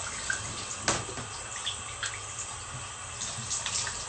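Water running steadily, a continuous hiss, with a few short sharp clicks over it, the loudest about a second in.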